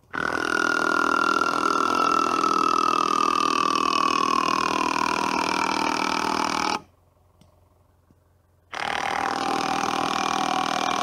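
A small engine running at high revs, its whine sagging slowly in pitch as if under load. It breaks off suddenly about seven seconds in and comes back just as suddenly about two seconds later.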